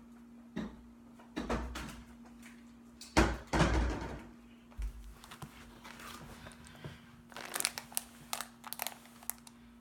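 Several dull handling thumps, the loudest about three seconds in, then quick crinkling of a plastic Zotz fizz candy wrapper being tugged and bitten at, which will not tear open.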